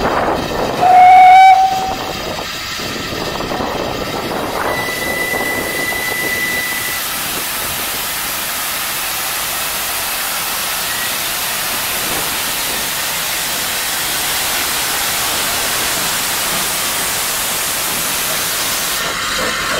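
Steam whistle of the Peckett 0-4-0 saddle tank locomotive 'Pectin' blown once, a short loud blast about a second in. It is followed by a steady hiss of escaping steam as the locomotive moves off.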